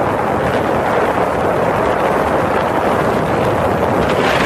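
Steady rush of wind buffeting the microphone, mixed with the hiss of water, on a boat running at speed over open sea.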